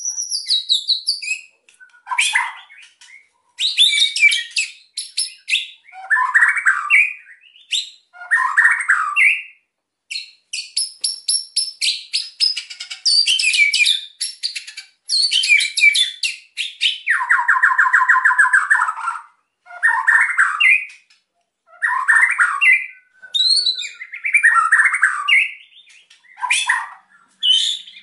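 White-rumped shama (murai batu) in excited, agitated full song: a varied stream of whistled phrases broken by fast crackling rattles ('kretekan'), with a harsh buzzing note lasting about two seconds a little past the middle.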